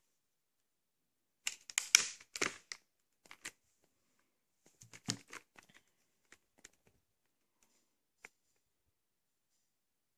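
Plastic VHS clamshell case being handled and closed: a burst of clattering clicks and rustles about two seconds in, another smaller cluster with a dull knock around five seconds, then a few scattered clicks.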